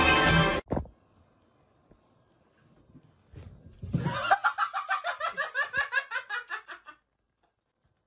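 A person laughing hard in a long run of 'ha-ha' pulses, about five a second, for about three seconds. Before it, a moment of music cuts off suddenly, followed by a quiet stretch.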